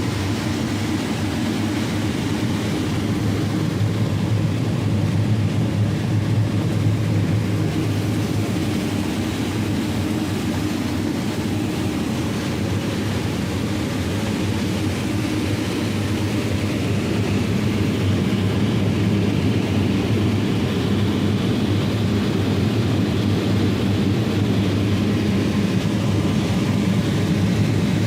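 John Deere S780 combine harvester running steadily while harvesting corn: an even, unbroken engine and machinery drone.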